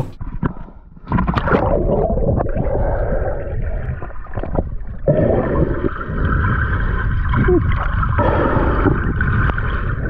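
Muffled gurgling and rumbling of river water heard through a camera held underwater, starting about a second in and running on steadily.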